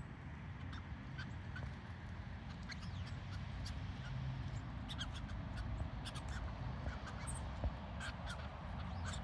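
Birds calling: short chirps and calls scattered through, some sharp and high, over a steady low background rumble.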